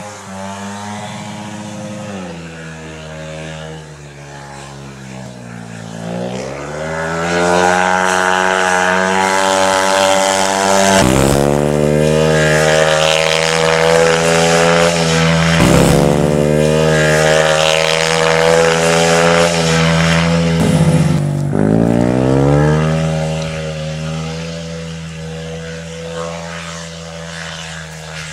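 Speedway motorcycle's 500 cc single-cylinder methanol engine running hard on a dry dirt track, its pitch dropping and climbing again several times as the throttle is eased and opened through the laps. It is loudest through the middle as the bike broadsides past close, and quieter as it rides away.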